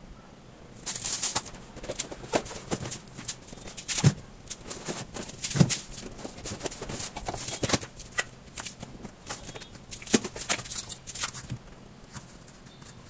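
Irregular rustling, clicks and light knocks of things being handled by hand, starting about a second in and dying away near the end.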